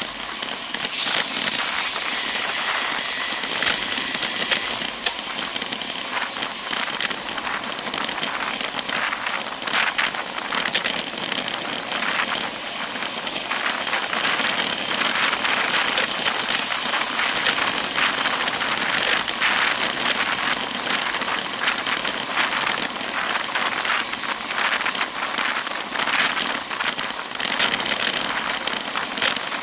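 Rushing wind and road noise picked up by a camera mounted on a moving bicycle, a steady hiss with frequent crackles from wind and vibration on the microphone.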